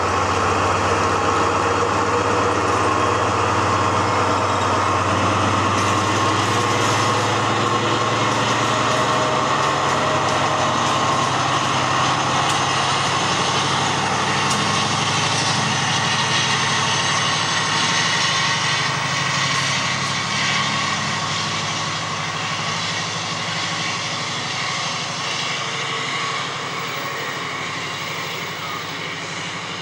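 Class 70 diesel-electric locomotive's V16 engine at full power, the thrash of a heavy freight start as it pulls away with about 1000 tonnes of loaded tank wagons. The engine sound fades gradually over the last ten seconds or so as the loco draws away and the tank wagons roll past.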